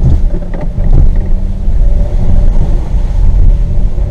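Low-clearance car driving slowly over a rough dirt trail: a loud, continuous low rumble of engine and tyres, with a few short knocks about a second in.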